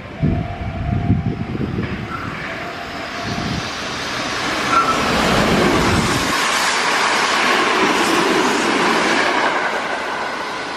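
Sanyo Electric Railway electric train passing through a station at high speed: the noise of wheels and running gear builds as it approaches, is loudest as the cars rush past in the middle, then fades as it recedes.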